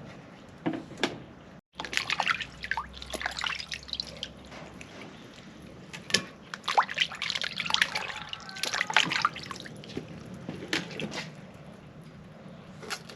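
Water splashing and dripping in irregular bursts, as if something is being handled or rinsed in water, with a brief break in the sound about a second and a half in.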